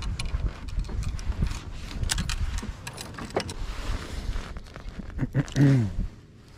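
Fishing rods and reels being handled on a kayak: a run of clicks, knocks and rubbing. A short sound that falls in pitch comes about five and a half seconds in and is the loudest.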